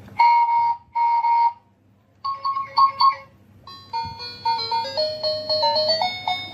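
Electronic toy sound chip playing two long beeps, then a few short blips, then a quick stepping jingle of thin, pure-sounding notes.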